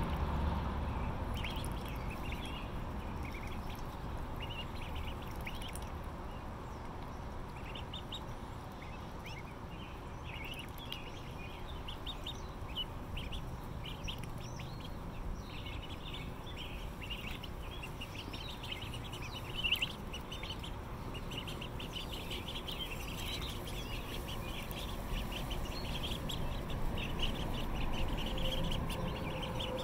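A flock of month-old Indian Runner ducklings peeping: many short high peeps overlapping, growing denser after the first several seconds. One short thump stands out about two-thirds of the way through.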